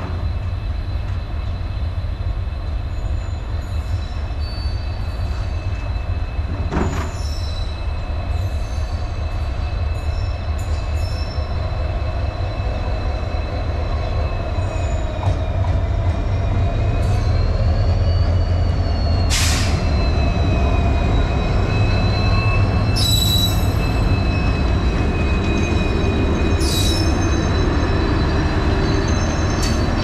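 WDP4D diesel-electric locomotive (EMD 16-cylinder two-stroke engine) approaching slowly, its engine a low steady rumble that grows louder over the second half. A thin, steady high-pitched wheel squeal runs over it, with a few sharp clicks.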